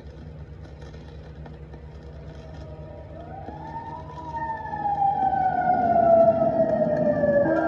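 Siren sound effect opening a calypso vinyl record: after a low steady hum, a siren comes in about three seconds in, rises in pitch, then slowly falls while growing louder.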